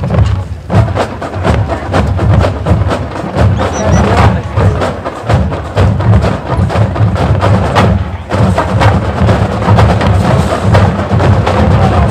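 Marching band playing, with busy percussion: many rapid sharp hits over a steady low bass.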